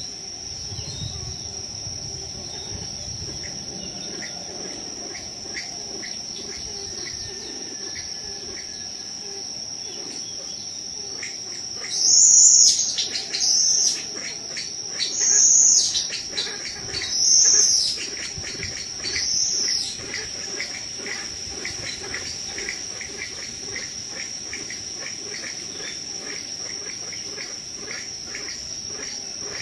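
A steady, high-pitched insect chorus. Five louder bursts of about a second each come roughly every two seconds, from about twelve seconds in to about twenty.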